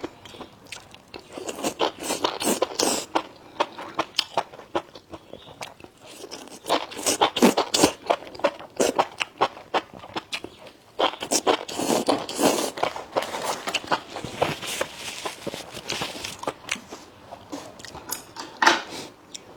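A person biting and chewing food close to the microphone, with many short, irregular clicking mouth sounds coming in clusters.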